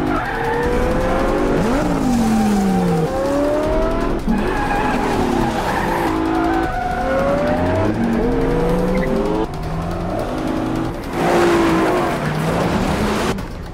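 Sports-car engines from a Lexus LC coupe and a Lamborghini Gallardo revving hard, pitch climbing and dropping again and again through gear changes, with several engines overlapping. Tyres skid, and about eleven seconds in there is a loud rushing pass. Faint music sits underneath.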